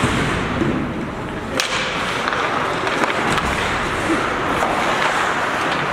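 Ice hockey play on the rink: skates scraping the ice, with one sharp crack about one and a half seconds in and a few lighter clicks after.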